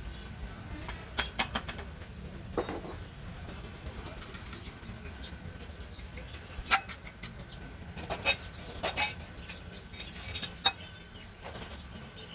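Metal tools and parts clinking and knocking against a tractor gearbox's metal casing during hand work. The sharp clinks come singly or in quick pairs at irregular intervals over a low steady background rumble.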